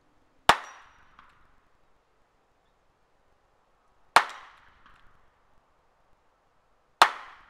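Three shots from an Armscor M200 .38 Special revolver firing +P loads, a few seconds apart, each a sharp crack that dies away quickly with a faint echo a moment later.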